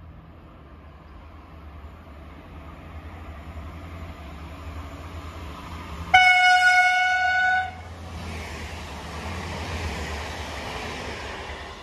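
Bayerische Regiobahn LINT 41 diesel multiple unit approaching with a steadily growing rumble, sounding one steady horn blast of about a second and a half just past the middle, then passing close with loud wheel-on-rail noise that fades near the end.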